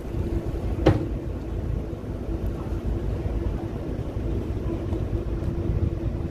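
Small boat's engine running steadily with a low rumble and a faint hum, and a single sharp knock about a second in.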